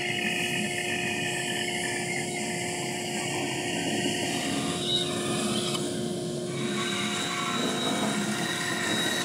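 Bandsaw with a 1/4-inch 6 TPI blade cutting a thick, gnarly wood slab into a seat blank. Over the steady hum of the saw, the blade makes a continuous rasping cut.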